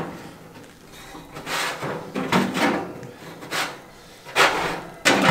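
Metal grates of a new offset smoker being pulled out and handled: a string of scrapes and clunks, loudest near the end.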